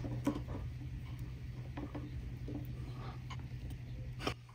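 A wood screw being driven by hand with a screwdriver through a plastic broom head's socket into a wooden handle, giving small, irregular creaks and clicks as it turns. A steady low hum runs underneath, and a sharper click comes near the end.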